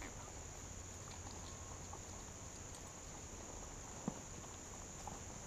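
Faint, steady high-pitched drone of insects in dry scrub over a low rumble of wind, with scattered small ticks and one sharp click about four seconds in.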